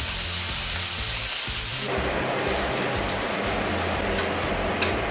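Chicken breasts sizzling in a frying pan, cutting off abruptly about two seconds in to a quieter, steadier hiss with a single click near the end, over background music.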